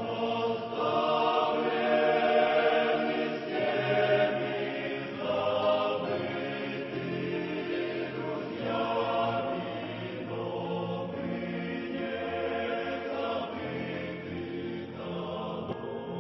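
A choir singing a hymn in slow, held chords.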